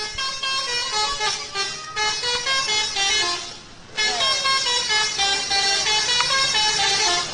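Telolet horn playing a tune: a quick run of stepped horn notes that breaks off about three and a half seconds in and starts again a moment later.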